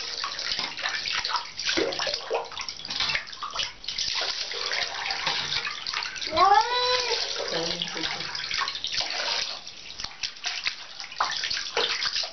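Water running and splashing in a bathtub as a cat is washed by hand. About six seconds in the cat gives one drawn-out meow that rises and then falls in pitch.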